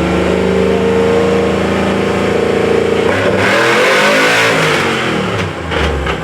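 A car engine running at steady, held revs, then a vehicle goes past close by, its sound swelling and fading between about three and five and a half seconds in.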